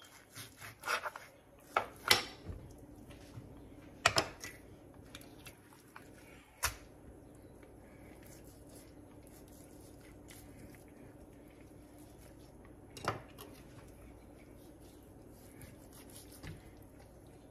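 Knife clicking and knocking against a plastic cutting board and a stone countertop while fat is trimmed off a raw boneless lamb leg: several sharp clicks in the first seven seconds and one more about thirteen seconds in, with quiet handling of the meat between.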